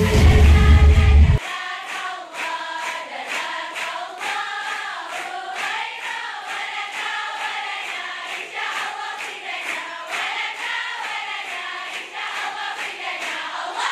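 A large group of schoolgirls singing together in unison and clapping in a steady rhythm. About a second and a half in, loud bass-heavy intro music cuts off suddenly.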